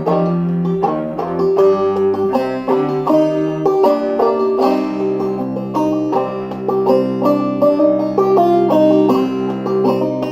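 Clawhammer banjo playing a steady run of quick plucked notes, with a cello under it holding long low notes.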